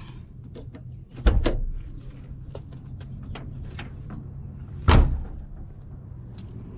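Honda Civic door being handled: a double clunk about a second in, then a louder door shutting about five seconds in, with small clicks and steps between.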